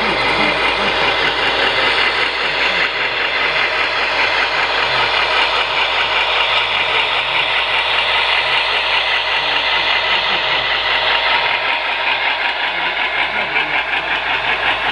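HO scale model freight train behind Union Pacific Dash 9 locomotives running past on the layout's track, giving a steady, even mechanical running noise.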